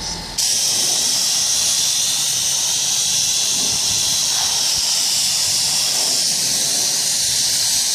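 Pressure washer lance spraying a steady hissing jet of water onto a car's lower bodywork, rinsing off snow foam. It starts abruptly about half a second in.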